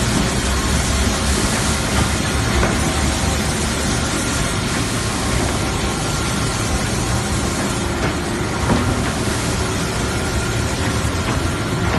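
Heavy-duty wide belt sanding and polishing machine running: a steady, loud mechanical noise with a faint high whine and a few scattered clicks.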